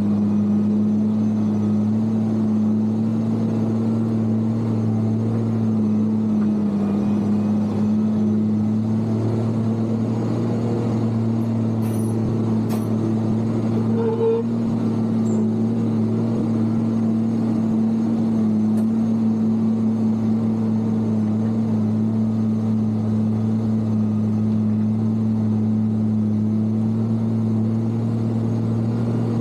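Case motor grader's diesel engine running at a steady, even speed while it works.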